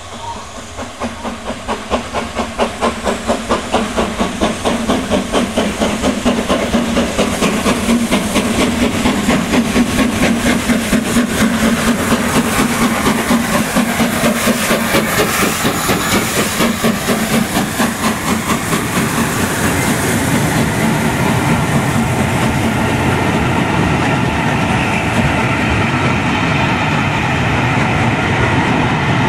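GWR Castle-class 4-6-0 steam locomotive 7029 Clun Castle passing slowly, its exhaust beats coming in a fast, even rhythm that grows louder as it draws near and goes by. From about two-thirds of the way in, its train of coaches rolls past with a steady rumble and the clickety-clack of the wheels.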